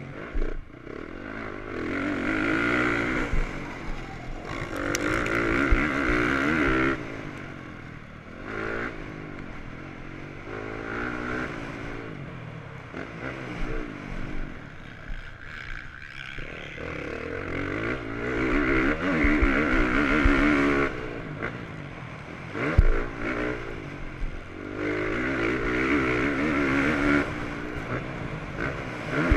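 Motocross bike engine heard from the onboard camera, revving hard in repeated bursts and dropping back between them as the throttle opens and closes around the track. A few sharp knocks come through as well.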